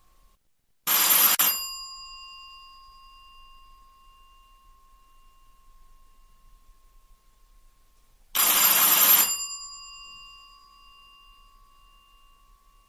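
Electric doorbell with a struck bell ringing twice, each ring a short burst of under a second, its tone ringing on and dying away for several seconds afterwards.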